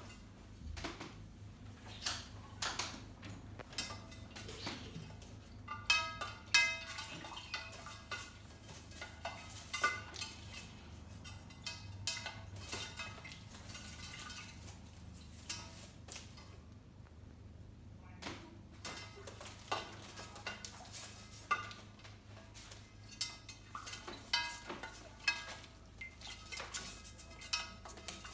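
Glass clinking and knocking as an African grey parrot plays with a glass holding a little water. There are irregular taps and rattles, each with a brief ring, busiest around six seconds in.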